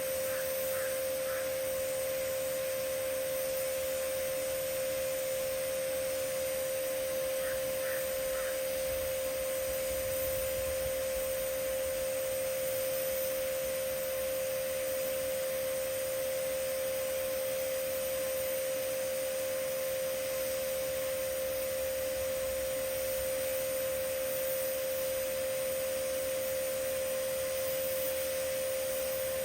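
TIG welding arc burning steadily while a fillet bead is run on carbon steel with ER70S-6 filler rod: a constant hum-like tone over an even hiss, without a break. A few faint short chirps come near the start and again about eight seconds in.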